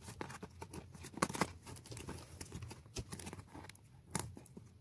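Fingers picking and peeling packing tape off a cardboard toy box: faint, irregular scratching and short tearing crackles, a little louder about a second in and again near the end.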